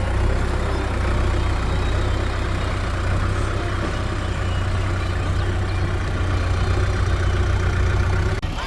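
Heavy diesel machinery engine running steadily with a deep low hum, breaking off abruptly just before the end.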